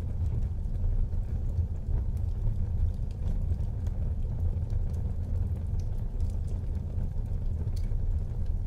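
Wood fire burning in a fireplace: a steady low rumble of the flames with faint, scattered crackles.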